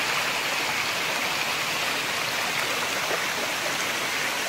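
Small stream of muddy rain runoff rushing and babbling over stones in a shallow dirt channel, swollen by heavy rain. A steady, even rush with no breaks.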